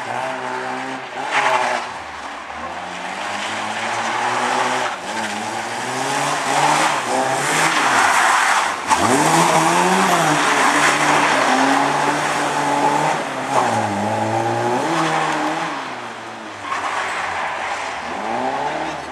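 Lada saloon's four-cylinder engine revving hard, its pitch rising and falling again and again as the car is driven around a tight course, with tyre noise underneath that is loudest about eight to twelve seconds in.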